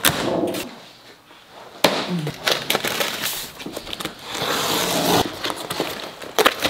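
A box cutter snaps through the plastic packing strap on a large cardboard box. The cardboard then scrapes and crackles as the tape is slit and the flaps are pulled open, with a few sharp clicks along the way.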